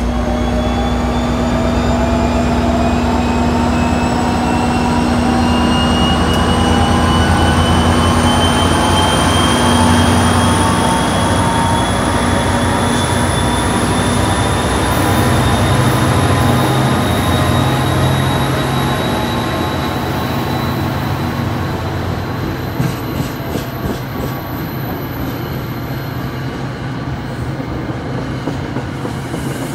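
Diesel-hauled commuter train pulling out and gathering speed: the locomotive's engine runs under load with a whine that rises slowly in pitch as the train accelerates. After about twenty seconds the engine's low hum fades as the passenger cars roll past, with a few sharp clicks from the wheels.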